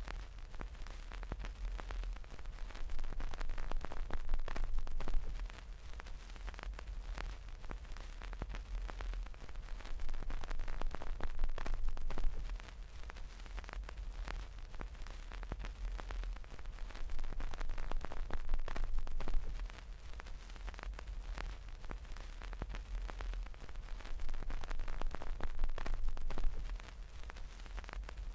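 Fingers rubbing and scratching the faux-fur windscreen of a homemade binaural microphone, heard right on the mic: dense crackling and rustling handling noise over a deep rumble. It builds up and drops off suddenly about every seven seconds.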